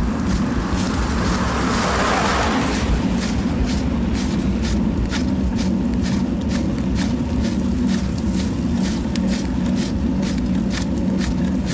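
Steady rumble of wind and rolling noise picked up by a moving action camera, with frequent irregular clicks and rattles. A broad hiss rises and falls about two seconds in.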